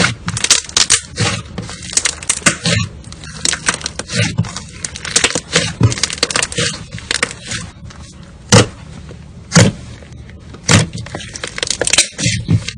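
Slime being squished and pressed by hand, giving a dense run of irregular sticky clicks and pops, with a few louder single pops a little past the middle.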